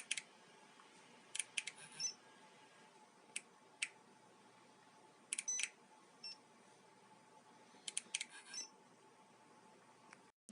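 Faint clicks of buttons being pressed on a car alarm key fob, in several quick groups about every two seconds, some groups ending in a short high beep from the fob.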